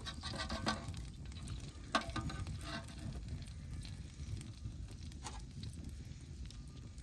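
Chopped vegetables frying in oil in a copper pan over a wood fire, sizzling quietly, with a few sharp clicks of the metal spoon against the pan in the first three seconds while they are stirred.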